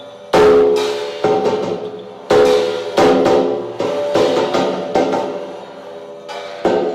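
Struck percussion instruments played as music: about ten irregularly spaced strikes, each ringing on with several pitched tones and fading away, the loudest shortly after the start.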